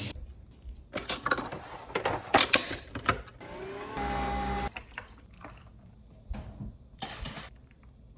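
Clicks and clatters of small objects being handled, the loudest about two and a half seconds in, then a short steady hum of a small appliance motor, under a second long, about four seconds in, followed by a few softer clicks.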